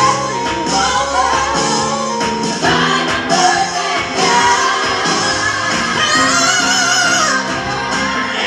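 Women singing live into handheld microphones over pop music.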